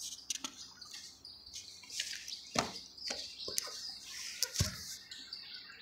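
Small birds chirping repeatedly in the background, a run of short high chirps, with a couple of soft taps about two and a half and four and a half seconds in.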